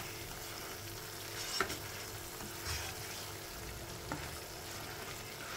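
Thick ground masala paste sizzling in oil in a non-stick kadhai as a spatula stirs and spreads it, with a few light knocks of the spatula against the pan. The oil is beginning to separate from the paste: the masala is nearly cooked through.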